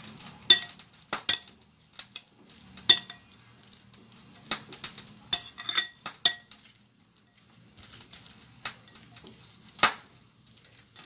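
Metal spoon stirring shredded white radish in a glass bowl, clinking irregularly against the glass with short ringing chinks, with a quieter pause of about a second past the middle.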